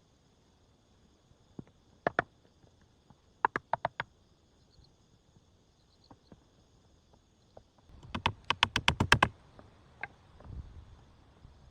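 A series of sharp knocks or clicks in quick clusters. There are two about two seconds in, four around three and a half seconds, and a fast run of about ten near the eight-second mark. A single knock follows.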